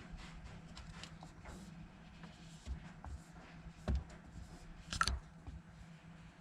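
Small handling sounds of a screen protector being fitted by hand: light taps and clicks, a few soft thumps and a brief rustle about five seconds in, over a steady low hum.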